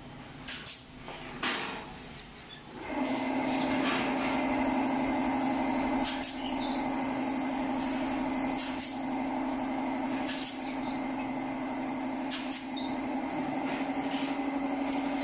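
Pneumatic ring gun firing sharp metallic clicks, often two in quick succession, as it clips galvanized wire cage panels together. About three seconds in, an air compressor motor starts up and runs with a steady hum under the clicks.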